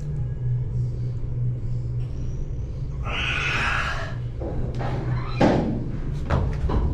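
Steady low hum of gym ventilation. Over it, a loud forceful exhale about three seconds in as a dumbbell curl is lifted, then a sharp knock a couple of seconds later and a few lighter knocks near the end.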